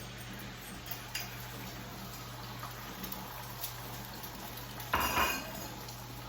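Metal utensil clinking and scraping against a frying pan, with a few light clicks about a second in and a louder clatter about five seconds in, over the steady sizzle of butter frying in the pan.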